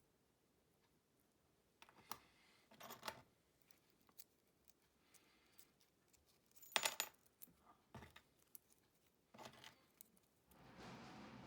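Small metal spoon lures clinking against each other and a hard surface as they are handled: a few separate sharp clinks with brief ringing, the loudest a little past the middle, then a stretch of soft noise near the end.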